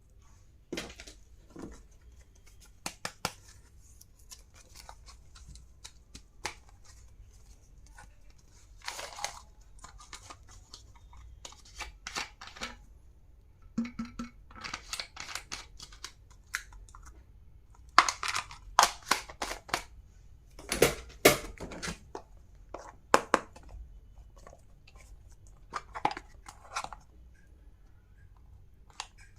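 Stationery and its packaging being handled and unwrapped: irregular clicks, taps and short rustles of plastic and cardboard, with a run of sharper clicks in the second half.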